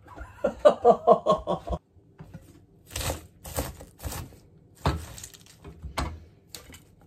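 A man's brief rhythmic vocalising of about six quick pulses. Then a series of crisp crunching and rustling bursts, about one every half second to second, as freshly cut cabbage is handled and cut by hand.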